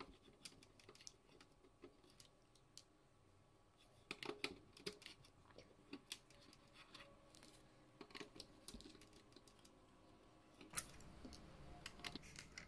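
Faint, scattered light clicks and ticks of a small screwdriver and loose screws being handled while a PlayStation 4 Pro casing is unscrewed.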